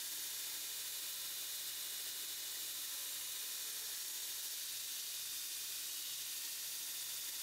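Belt grinder grinding a hardened steel knife blade flat against its platen: a steady, even hiss. This is the final grinding of the bevels after heat treat.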